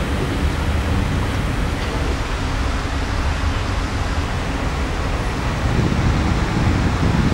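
Steady city traffic noise mixed with the rushing hiss of large fountain jets. The rumble swells a little near the end.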